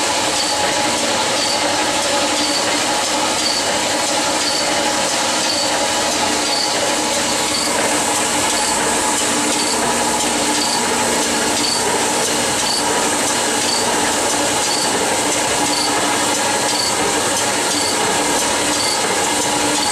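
Cylinder honing machine running, its 220-grit stones spinning and stroking inside a Ford Model A cast-iron cylinder bore under a flood of honing oil: a steady grinding hiss over a machine hum. A faint regular tick comes about twice a second. This is the final finishing hone, taking off the last few thousandths of an inch.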